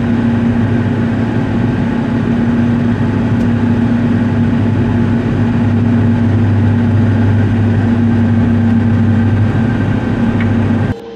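Tractor engine running steadily under way, a deep, even hum that holds one pitch; it cuts off suddenly near the end.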